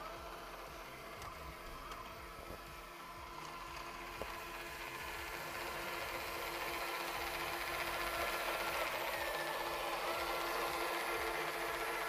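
IIUTEC R-Cruiser robot vacuum running: a steady motor whir with a hum, growing louder through the middle of the stretch.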